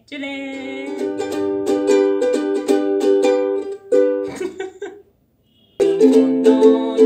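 Ukulele strummed in steady chords. The strumming dies away about four seconds in and starts again after about a second of silence.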